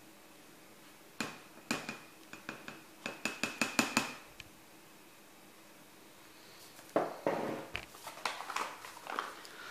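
A ceramic mug tapped and knocked over a plastic tub as the last flour is shaken out, with a quick run of taps carrying a faint ring about three to four seconds in. More knocks and clatter follow near the end as the mug is set down on the table.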